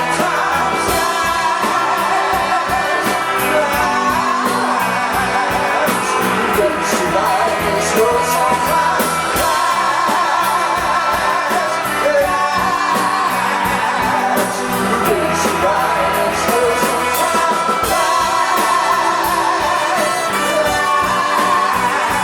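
Live rock band playing loudly with guitar and a singer's drawn-out, wavering vocals.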